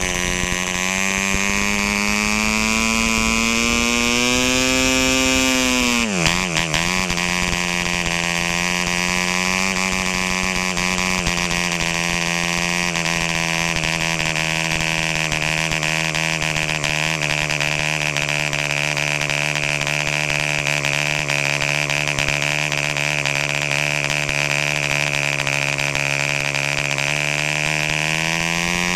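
A 1953 E.D. Racer 2.46cc MKII model diesel, a two-stroke, runs at high speed swinging a large vintage propeller, set rich and not yet leaned out. The buzzing note climbs slowly, dips sharply about six seconds in and picks back up, holds steady, then rises again near the end.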